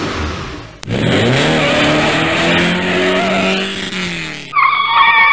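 Intro sound effect: a rushing noise, then a click and a car engine revving up about a second in, holding high and easing off. Near the end comes a high, wavering tire screech.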